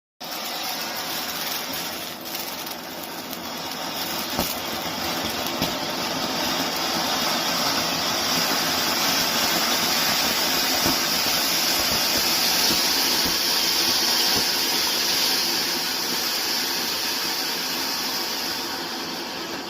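Diwali ground firework burning with a steady, loud hiss of spraying sparks, with a few faint crackles. It starts suddenly, swells a little through the middle and eases off near the end.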